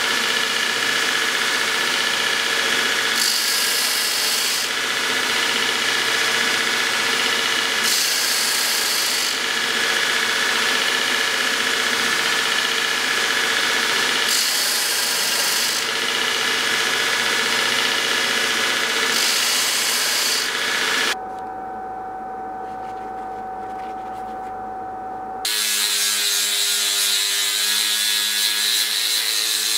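A power tool running steadily on metal, with a brighter hiss swelling four times, about every five seconds. Near the end the sound changes abruptly twice, first to a quieter, steady whine, then to a different machine sound.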